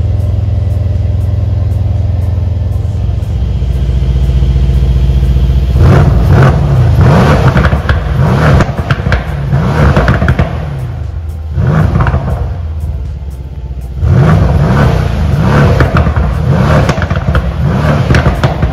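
Mercedes-AMG C63 S coupe's 4.0-litre twin-turbo V8, heard through its AMG sports exhaust. It idles steadily, then from about six seconds in is revved several times, each rev rising and falling with crackles and pops as it comes off. After a short lull near the middle comes a second run of revs.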